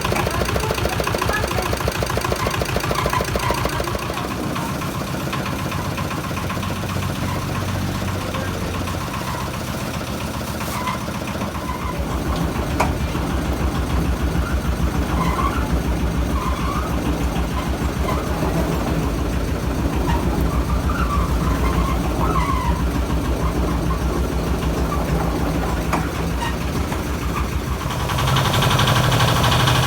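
Carrot-washing machine running with a steady, fast engine-like pulse, getting louder and brighter near the end.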